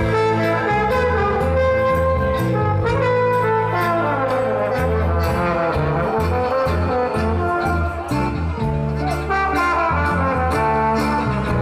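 A live band plays a horn-led instrumental passage, with a tuba-like bass line underneath and a steady drumbeat.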